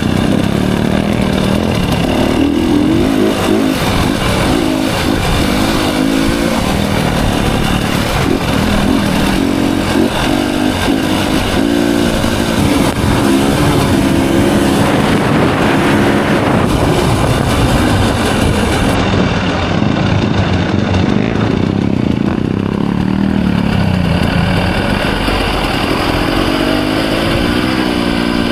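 Off-road motorcycle engine running under way, its revs rising and falling as the rider works the throttle, with a climbing rev near the end.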